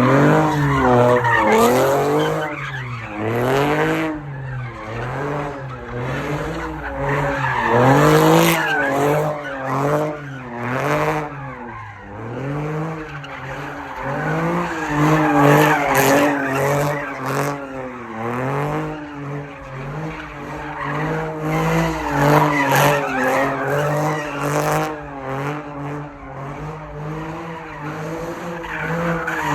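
Car doing doughnuts: the engine revs up and down over and over, about once a second, while the tires squeal against the pavement.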